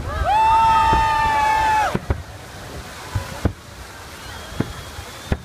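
Several people shouting together in one long cheer for about two seconds, right after a fireworks salvo. Then a few sharp, scattered fireworks pops over a steady rush of fountain water.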